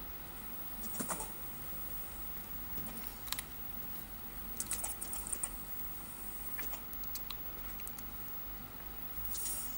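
Scattered clicks and taps on a computer keyboard, in small irregular groups: about a second in, a busier run around five seconds in, and again near the end.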